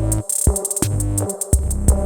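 Electronic background music with a drum-machine beat: sharp drum hits over heavy, sustained bass notes.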